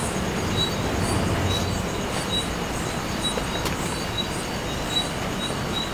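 Steady rushing outdoor noise with a low rumble. Over it, night insects call: a short high chirp about once a second and a fainter, faster high trill.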